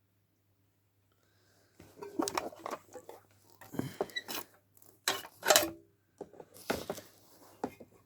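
A transformer part being cut off with a hand cutting tool: irregular crunching, snipping and clattering that starts about two seconds in, with a few brief metallic rings.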